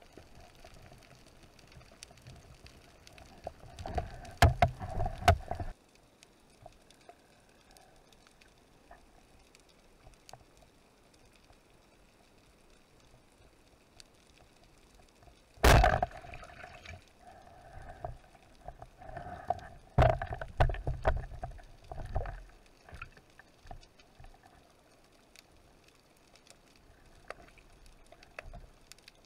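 Underwater sound of a band-powered speargun firing: one sharp crack about halfway through, followed by bursts of water and handling noise as the speared fish is dealt with. A cluster of similar underwater bumps and water noise comes a few seconds in.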